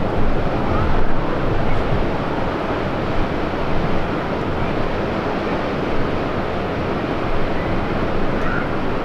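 Wind buffeting the microphone: a steady rushing noise with a low, uneven rumble and small gusts.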